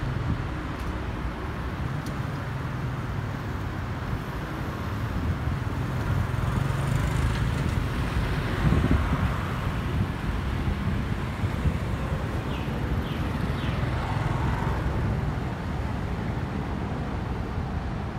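Distant jet rumble of an Airbus A330-243F's Rolls-Royce Trent 700 engines as the freighter passes high overhead, swelling slightly midway. It blends with a steady low background of road traffic.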